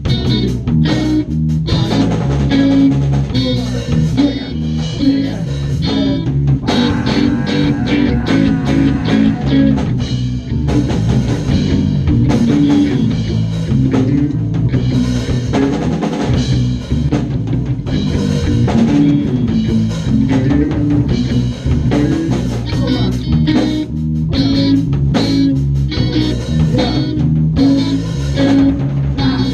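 Live three-piece band playing punk rock: electric bass, electric guitar and a Pearl drum kit.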